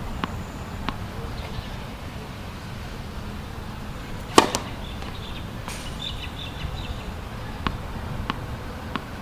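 A tennis ball bounced twice on a hard court, then a serve: the racket strikes the ball with one loud, sharp hit about four seconds in. Three more ball bounces follow near the end.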